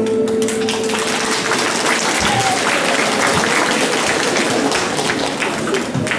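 Audience applauding: dense, steady clapping that starts as the waltz music stops and thins slightly near the end.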